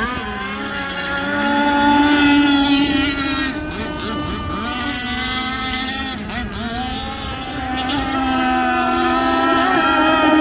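Zenoah 32cc two-stroke petrol engine of a radio-controlled speedboat running at speed on the water. Its pitch dips and rises several times with throttle and turns, and it grows louder about two seconds in and again near the end as the boat passes.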